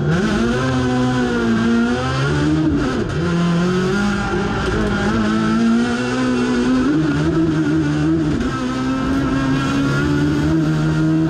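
Competition car's engine heard from inside the cockpit, running hard under full acceleration from a standing start, its pitch dropping at a gear change about three seconds in.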